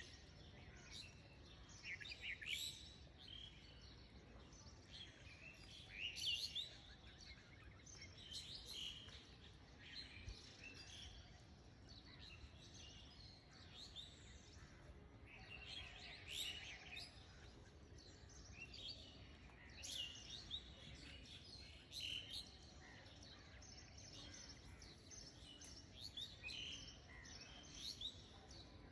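Faint birds chirping on and off, short twittering calls every second or two over a low background hiss.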